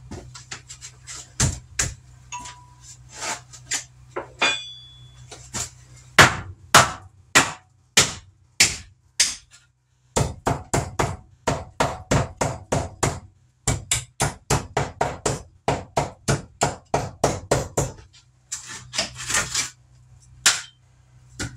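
Repeated hammer blows during demolition work, a few scattered knocks at first, then steady runs of strikes about two to three a second, with short pauses between runs and a brief rattle near the end.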